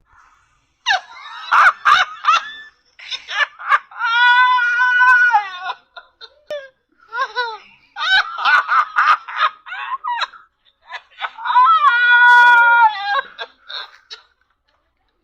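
Loud, high-pitched laughter breaking into a long held squeal, in two rounds.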